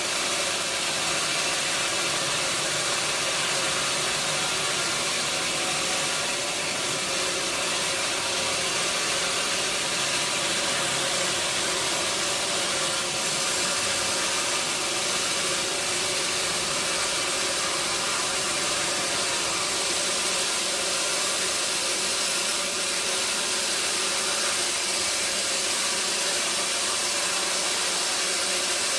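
Sawmill machinery running steadily: an even hiss with a faint steady hum, with no changes or impacts.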